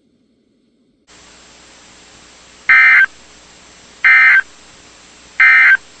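NOAA Weather Radio receiver sounding the Emergency Alert System end-of-message code: three short buzzy data bursts about a second and a half apart, marking the end of the alert broadcast. A steady radio hiss comes in about a second in and runs under the bursts.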